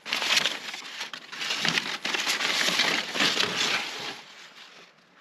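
Loose sheets of paper rustling and crinkling as a hand rummages through a cardboard box of crumpled documents. The sound dies away near the end.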